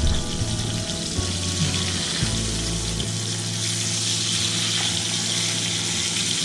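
Floured steaks sizzling in hot oil in a cast-iron skillet, a steady crackling hiss that grows louder about halfway through as the steaks are turned over with a fork.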